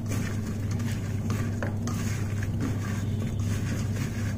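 A hand mixing raw chicken thigh pieces with herbs and spices in a stainless steel bowl: irregular squelches and light scrapes against the steel. A steady low hum runs underneath.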